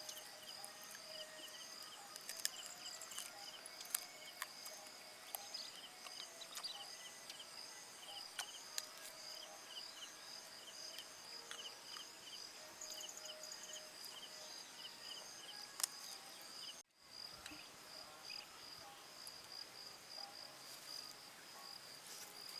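Faint field ambience of insects: a steady high-pitched trill with rows of short, evenly repeated chirps over it, and scattered soft clicks. The sound cuts out briefly about seventeen seconds in.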